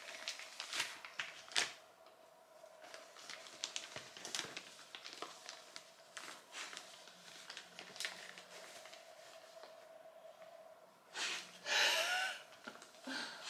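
Tissue-paper gift wrapping crinkling and tearing as a cockapoo puppy noses and tugs at a wrapped present. The crackling comes in short, irregular spells, with a louder rustle near the end.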